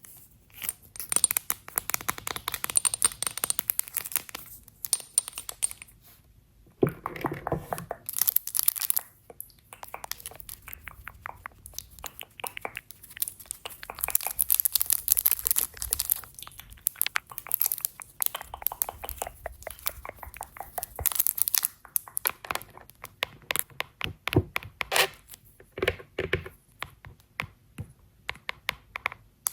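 Close-miked crackling, crinkling and tapping from makeup products and their packaging being handled, in dense runs of small clicks broken by short pauses.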